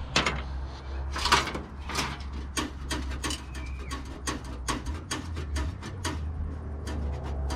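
Irregular clicks and clinks of small metal computer parts and the steel case being handled as a PC tower is stripped, a few sharp knocks a second.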